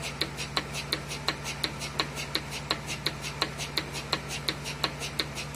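Cow milking machine running with its teat cups on the udder: the pulsator clicks evenly about three times a second over the steady hum of the vacuum pump.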